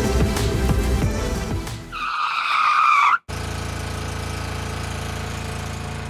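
Background music, then about two seconds in a brief screech that cuts off abruptly. After the cut, a steady low hum: the airboat's engine idling.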